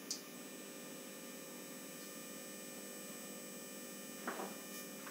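Faint steady electrical hum, with a small click just after the start and a brief soft sound about four seconds in.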